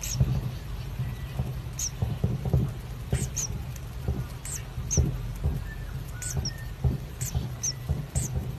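Common kingfisher calls: about a dozen short, high squeaks, each sliding down in pitch, at irregular intervals over a steady low hum and a few soft thumps.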